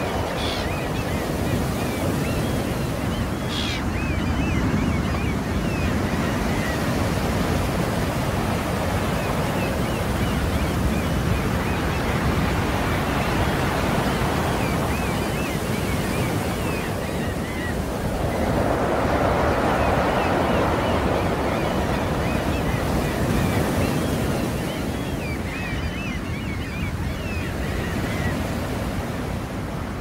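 Heavy storm surf: rough sea waves breaking and foaming on the shore in a continuous rushing wash, with wind. The surge swells louder about two-thirds of the way through.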